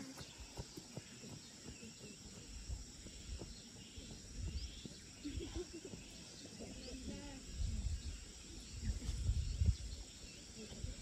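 Faint rural outdoor ambience: insects and birds chirping faintly, a few faint distant voices, and low rumbling bursts in the second half.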